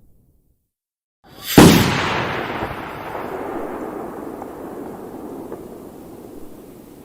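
A single bomb explosion sound effect: after a second of silence, a brief swell leads into a sharp blast about one and a half seconds in, followed by a long rumble that slowly dies away.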